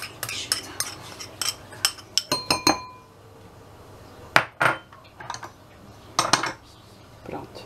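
Metal spoon scraping and tapping against a small plastic tub and a ceramic bowl while scooping out tomato paste. A quick run of clicks over the first couple of seconds includes a few ringing clinks around two and a half seconds in, followed by a few single taps later.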